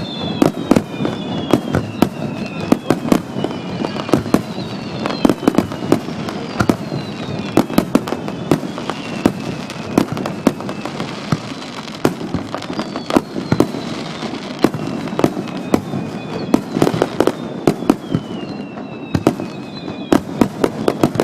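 Aerial fireworks shells bursting in quick succession, a steady run of sharp bangs and crackles several times a second, with now and then a whistling tone that falls in pitch. The booms sound harsh and distorted through a compact digital camera's microphone.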